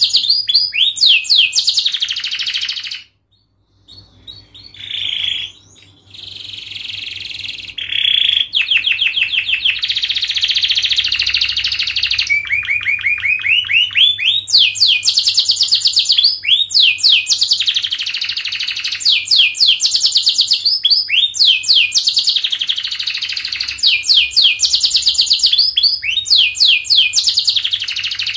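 Domestic canary singing a long song of fast trills: tight rolls of rapidly repeated notes, high-pitched. The song breaks off briefly about three seconds in, then resumes.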